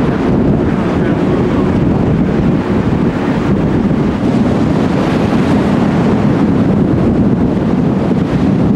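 Steady wind buffeting the microphone together with the rush of sea water along a ship's side, a low, even noise with no distinct events.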